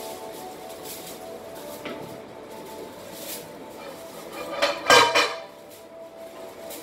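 Metal cookware being handled: a few light knocks, then a louder clatter of pot and lid with a brief ring about five seconds in.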